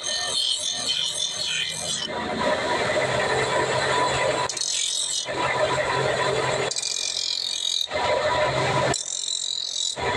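Steel meat-cleaver blade held against a spinning belt-driven grinding wheel: a continuous grinding hiss over the steady hum of the machine. The sound changes abruptly several times.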